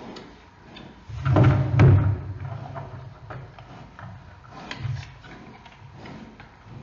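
Giant panda mother and cub shifting and tussling against a den wall and floor: dull thumps and scraping with light clicks, loudest a little over a second in and again briefly near five seconds.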